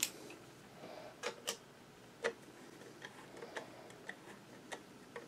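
Light metal clicks and taps from a screwdriver working the feed dog rock shaft pivot screw on a Singer 66 sewing machine's cast-iron bed: a sharp click at the start, a few louder clicks in the first couple of seconds, then fainter scattered ticks.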